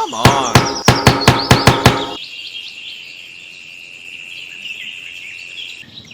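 A quick run of about seven sharp knocks, each with a short ringing tone, that stops about two seconds in. Birds chirp over a steady high-pitched tone after that.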